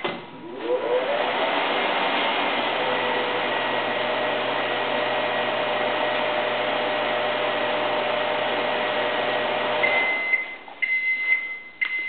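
Microwave oven running: a steady hum and fan noise with a faint high whine for about ten seconds, then it shuts off and sounds a series of short high beeps about twice a second, signalling the end of the heating cycle.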